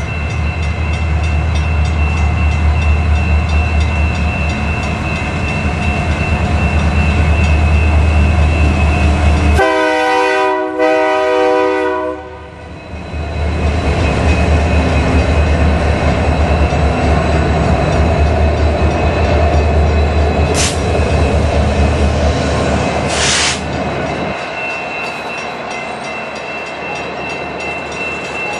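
Union Pacific freight train's diesel locomotives approaching and passing close by. About ten seconds in, the lead locomotive sounds a chord on its air horn for roughly two and a half seconds. Near the end the engine noise gives way to the quieter rolling of empty well cars on the rails.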